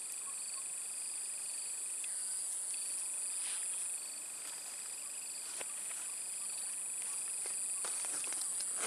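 Steady chorus of insects, a continuous high-pitched trilling made of several unbroken tones, with a few faint clicks scattered through.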